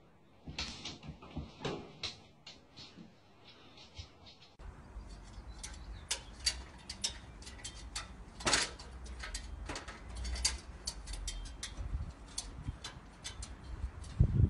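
A dog's claws and paws clicking and knocking irregularly on the rungs of an aluminium ladder as it climbs, over a low rumble, from about five seconds in. Before that there are only a few faint clicks.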